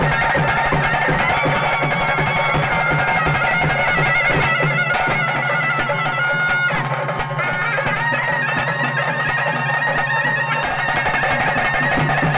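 Traditional ritual band music: a reedy wind instrument plays a wavering, ornamented melody over a steady low drone, with drums beating. The drums drop out for several seconds in the middle, then come back near the end.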